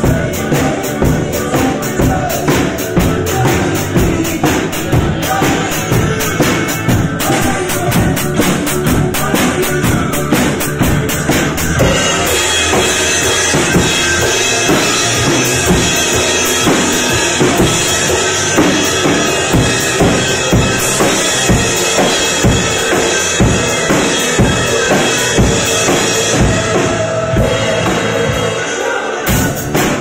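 Tamburo acoustic drum kit played in a steady rock beat, bass drum and snare keeping even time. About halfway through, a continuous cymbal wash joins the beat, and there is a short break in the low drums just before the end.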